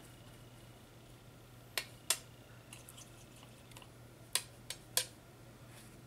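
Paintbrush clicking against a metal watercolour palette tin while picking up paint: a pair of sharp clicks about two seconds in and three more near the end, with a few fainter ticks between.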